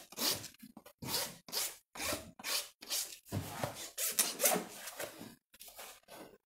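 Farrier's rasp filing a horse's hoof in repeated back-and-forth strokes, about two a second, stopping shortly before the end.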